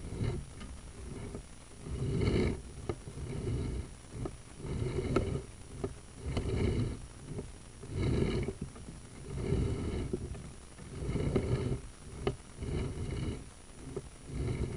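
Rhythmic bursts of rumbling and scraping, about one every second and a half, several with a squeal on top: a sewer inspection camera's push cable being shoved and pulled through the pipe.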